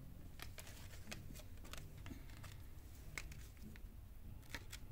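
Faint, irregular light clicks and rustles of oracle cards and guidebook paper being handled, over a low room hum.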